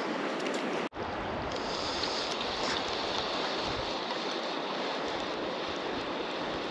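Steady rush of river water flowing through a salmon pool, with an uneven low rumble of wind on the microphone. The sound cuts out for an instant about a second in.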